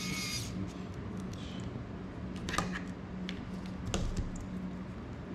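A hiss with a steady whistling tone cuts off about half a second in. Then come light clicks and a few sharper knocks as the small FPV drone and its battery are handled on a table, over a steady low hum.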